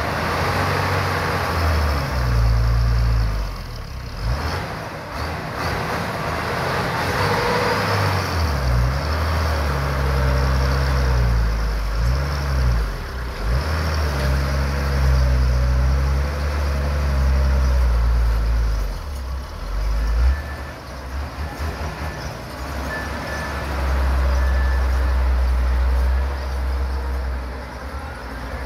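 Heavy truck's diesel engine working as the truck crawls through deep mud ruts, its revs rising and falling again and again.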